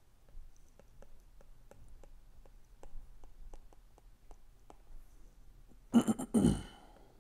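Stylus tip tapping and sliding on a tablet's glass screen during handwriting: faint, irregular clicks a few times a second. About six seconds in there is a short, louder throaty vocal sound in two parts.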